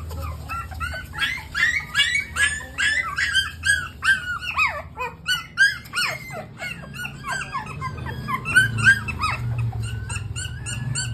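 Several young puppies crying: a dense, overlapping run of short, high-pitched whines and squeaks.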